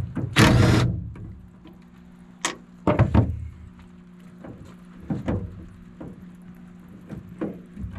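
A series of knocks and clunks as metal parts of a pickup's body are handled and pulled at, the loudest a longer clank about half a second in, over a steady low hum.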